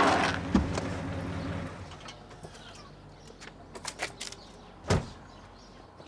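A car's sound fades away over the first two seconds. Faint clicks follow, then a car door shuts with a single thump about five seconds in.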